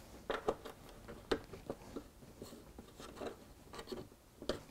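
Light, irregular clicks, taps and rubbing as hands handle small plastic screw terminal blocks against a plywood board, with a sharper click near the end.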